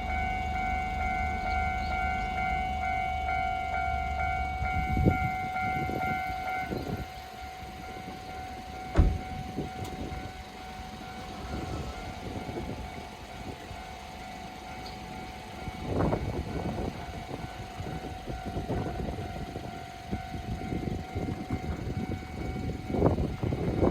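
Japanese railway level-crossing warning signal ringing over a low rumble, the ringing stopping about seven seconds in. After that come scattered low thumps and rumble, with a sharp knock about nine seconds in.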